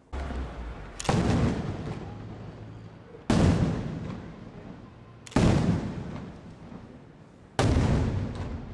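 Aerial firework shells bursting: a low thump just as it begins, then four loud, sharp bangs about two seconds apart, each followed by a long echoing tail.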